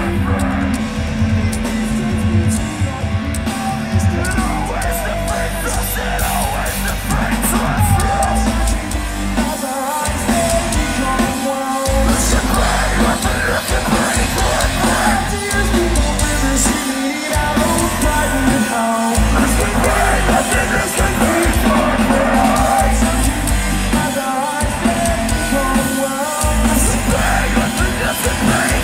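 Metalcore band playing live: a vocalist singing and screaming over loud distorted guitars, bass and drums, with the low end dropping out briefly several times. Heard from within the crowd through a phone's microphone.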